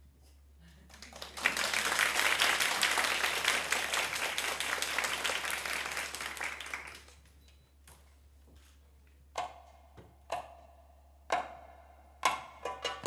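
Audience applauding for several seconds, then dying away. Near the end, a handful of single strokes on a goblet drum (darbuka), about a second apart, as the drum solo begins.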